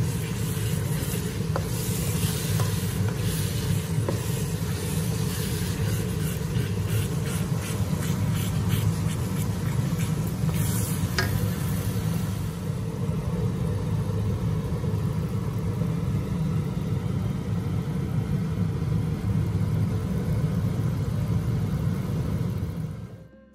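Thick sambal chili paste frying in a wok with a steady sizzle over a constant low rumble, with a spatula scraping and tapping the pan now and then in the first half.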